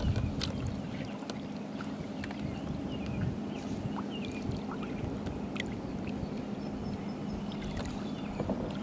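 Water sloshing against a boat hull as a large flathead catfish is held in the river, with a splash near the end as the released fish kicks away. A steady low hum runs underneath.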